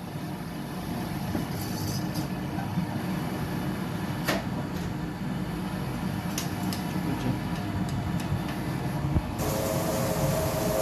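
Noodles boiling in a pot on the stove: a steady low rumble of bubbling water that slowly grows louder, with a sharp click about four seconds in. Near the end a louder hiss with a steady whine sets in.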